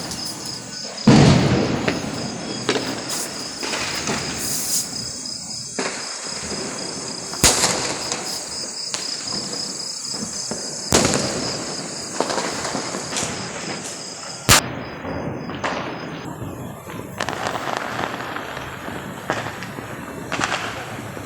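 Firecrackers going off: a series of sharp, irregular bangs, the loudest about a second in, each with an echoing tail, over a continuous crackling haze. A steady high-pitched pulsing tone runs through the first two-thirds and stops.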